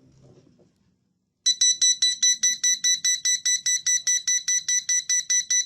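9-volt photoelectric smoke detector's piezo alarm going off about a second and a half in, a shrill, rapid beeping at about four beeps a second, set off by test smoke reaching its sensor.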